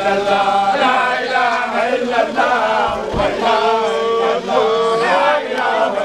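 A group of voices chanting a devotional song together, with long held notes that slide and step between pitches.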